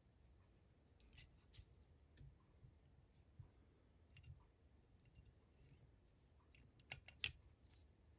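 Faint, scattered small clicks from fly-tying work at the vise as the thread wraps binding the foam are tightened, with one sharper click near the end; otherwise near silence.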